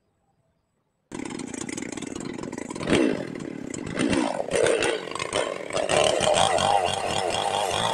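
About a second of near silence, then a two-stroke chainsaw comes in abruptly, running and revving up and down several times.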